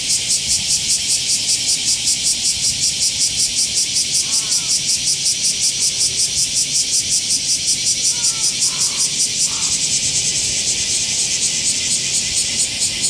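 Cicadas calling loudly in a pulsing rhythm of about four beats a second, with a few faint short chirps.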